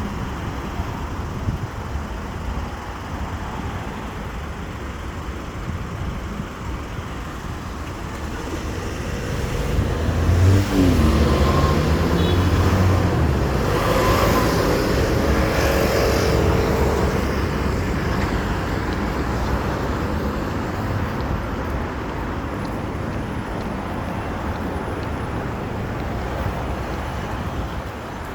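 Road traffic: a steady low rumble, with one vehicle's engine swelling louder between about 9 and 17 seconds in and dropping in pitch as it passes.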